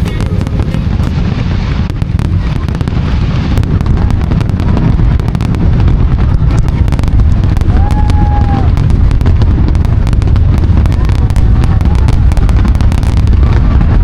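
Aerial fireworks going off in quick succession: a dense, continuous low rumble of bursts with crackling over it, getting louder about five seconds in.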